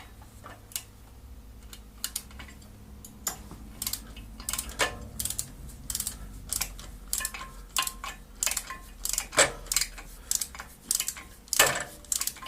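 Irregular sharp metal clicks and clinks of hand tools working on the motorcycle's front-cylinder spark plug, some with a brief ring.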